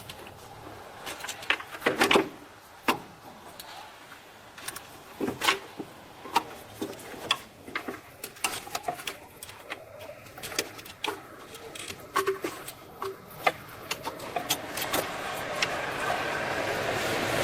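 A run of irregular sharp clicks and knocks from hand work with tools, with a steady noise swelling near the end.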